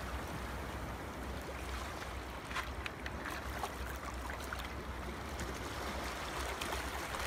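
Steady background hiss with a low hum underneath and a few faint ticks scattered through it: the recording's background noise, with no speech or music.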